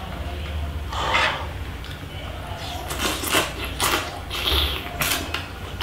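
Close-miked eating sounds: sucking and slurping crab meat out of a leg shell, with the shell clicking and rubbing, in a string of short bursts.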